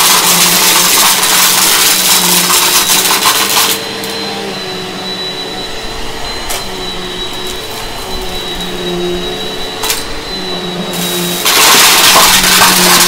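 Upright bagless vacuum cleaner running on carpet. For the first few seconds, and again from about two seconds before the end, a loud crackling rattle of bottle caps and crunchy debris being sucked up drowns the motor. In between, the motor hums steadily with a thin high whine, broken by two sharp clicks.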